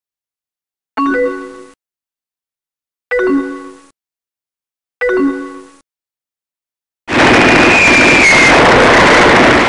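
A short chime, a message alert, sounds three times about two seconds apart, each ringing briefly and fading. About seven seconds in, a loud explosion sound effect takes over, a dense roar of noise with a thin whistle-like tone that dips slightly in pitch.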